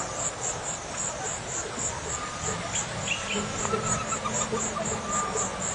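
An insect calling in an even train of high-pitched pulses, about three to four a second, over a steady low background hiss, with a few faint bird whistles about halfway through.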